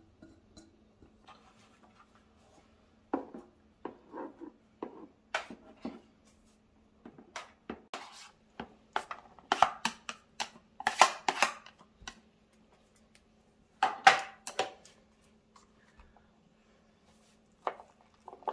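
Irregular clatter of kitchenware: chopsticks and plastic food containers knocking and scraping as bracken, bean sprouts and beef are pushed into a plastic tub of batter, loudest in two flurries past the middle. A faint steady hum runs underneath.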